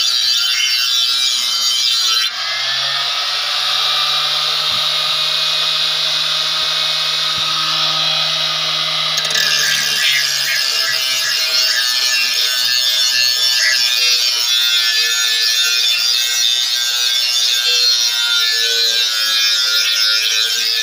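Small handheld electric motor with an abrasive grinding wheel, running against a steel cutting blade and grinding a sharp edge onto it. Between about two and nine seconds in the grinding sound changes, with a low steady hum under it, then returns to its earlier pitch.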